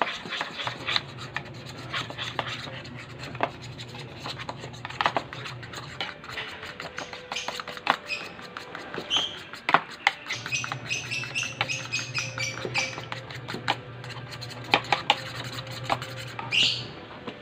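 Metal fork stirring and scraping a thick Milo chocolate-malt paste against the sides and bottom of a small bowl: a run of irregular scrapes and light clicks.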